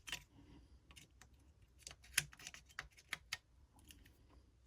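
Faint, irregular small clicks and taps as a refrigerator compressor's overload protector and relay unit is handled and lined up to push back onto the compressor's terminal pins.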